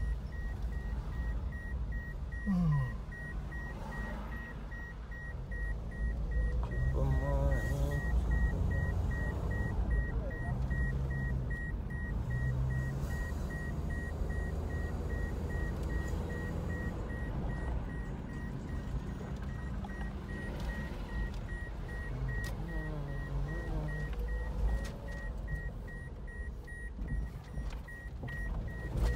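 Inside a moving car: low engine and road rumble, with a car's high electronic warning beep repeating rapidly and evenly at one pitch.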